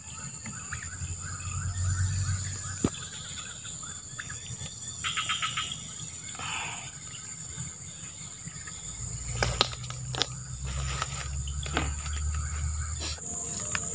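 Swamp insects shrilling steadily on one continuous high tone, with fainter wavering chirps lower down. A few sharp clicks come about nine to ten seconds in.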